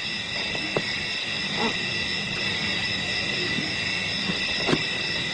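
Steady high-pitched chorus of night insects, with a couple of faint short clicks, one about a second in and one near the end.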